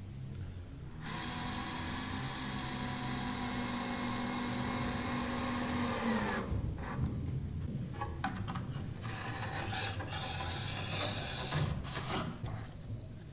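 Cordless drill running at a steady speed as it bores into plywood, with a rasping of wood, and winding down about six seconds in. Irregular scraping and rubbing of wood follows.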